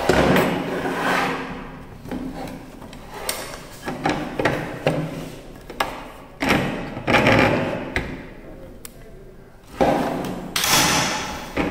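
Handling noise from a Makita HS004G cordless circular saw that is not running: irregular clicks, knocks and rubbing as its blade guard and base are moved by hand. The loudest rubbing comes just after the start and again around ten seconds in.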